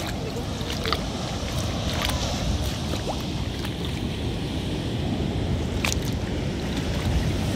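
Wind noise on the microphone over the steady wash of the sea, with a few light clicks.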